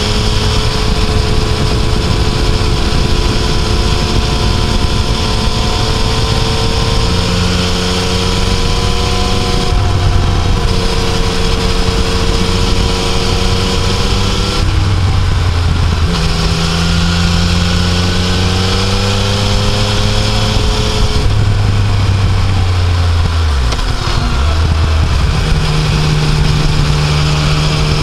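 Yamaha Tracer 900's three-cylinder engine heard from on board while riding uphill, its note rising under throttle and dropping several times, around ten, fifteen and twenty-two seconds in, as the rider shifts or rolls off, with steady wind rush over the microphone.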